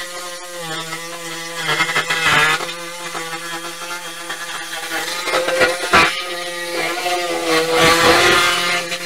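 A power tool running steadily, its pitch wavering slightly under load, with sharp knocks about two, six and eight seconds in.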